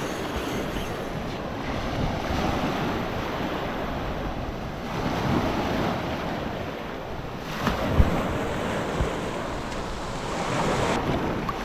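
Surf washing onto the shore, swelling and easing, with wind buffeting the microphone. A brief thump about eight seconds in.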